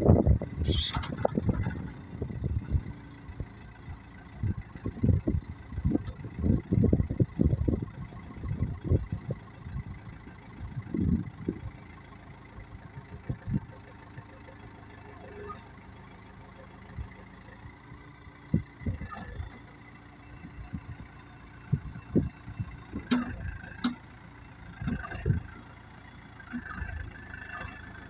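Terex TX760B backhoe loader's diesel engine running while the backhoe boom is worked and folded in, with uneven low thumps and surges that are heaviest in the first half.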